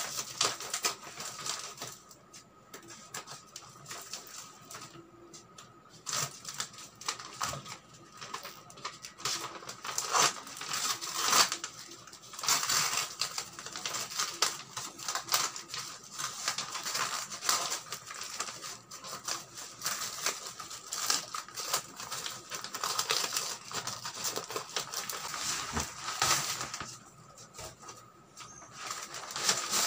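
Brown wrapping paper and plastic packing tape being cut with scissors and torn off a parcel: irregular crinkling, rustling and ripping, with a quieter stretch a few seconds in.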